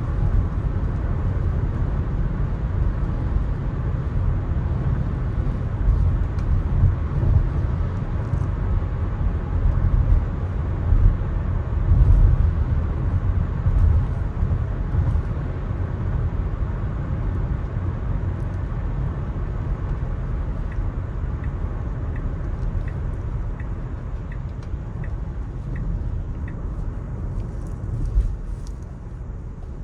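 Tesla electric car driving on wet city streets: steady low road and tyre rumble with no engine note. A faint regular ticking comes in for a few seconds past the middle, and the rumble eases slightly near the end.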